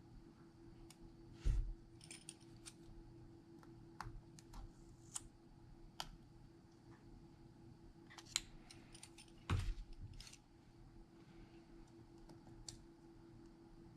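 Small repair tools clicking and tapping against a phone's parts, irregular light clicks with two louder knocks, one about a second and a half in and one about two thirds through; a steady low hum runs underneath.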